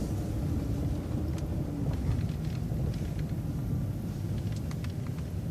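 City transit bus running as it pulls away from a stop: a steady low engine rumble with a faint whine that dips slightly over the first couple of seconds.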